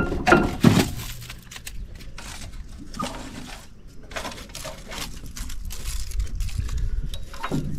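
Irregular rustling and crackling as wedged clumps of mown grass and a branch are pulled out from around a compact tractor's axle.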